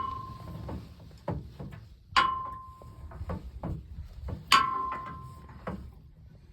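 Repeated sharp metal clanks: a loud strike about every two seconds, each ringing briefly with a clear tone, with lighter knocks in between.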